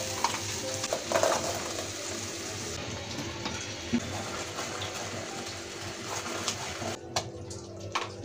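Frothy cheese-puff mixture bubbling and sizzling in a hot pan as it is stirred with a wooden spatula, with a few light knocks of the spatula against the pan.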